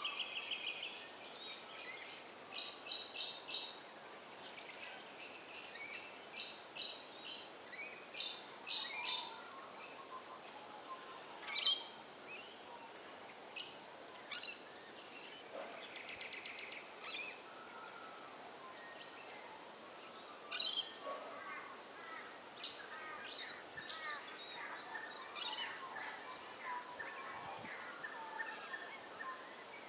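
Willie wagtail calling: short, sharp notes in quick runs of three to five, thickest in the first ten seconds and scattered after, with a couple of brief trills.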